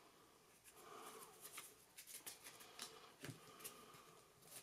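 Faint soft clicks and slides of Magic: The Gathering trading cards being flicked through by hand, one card at a time, at irregular intervals.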